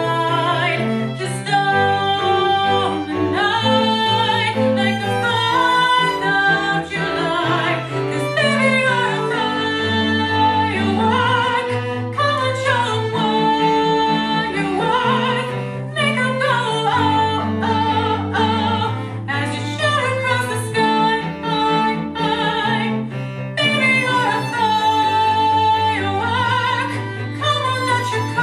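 Operatic soprano singing over a string quartet of two violins, viola and cello, the strings playing repeated chords above low cello notes that change every second or two.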